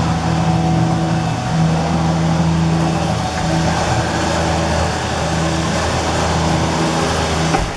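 Electric hoist motor of a homemade cable elevator running steadily as it lowers the cage. It cuts off suddenly near the end, when the cage reaches the bottom.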